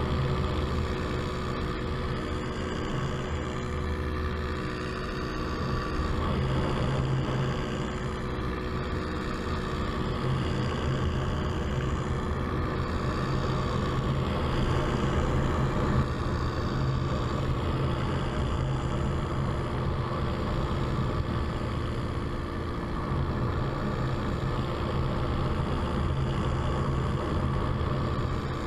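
Paramotor engine and propeller running steadily in flight, a continuous drone with small shifts in level.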